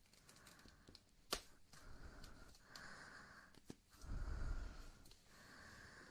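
Close-miked ASMR mouth sounds: soft breathy puffs with scattered wet tongue and lip clicks, the sharpest about a second in and again before four seconds. A louder, deeper breath hits the microphone about four seconds in.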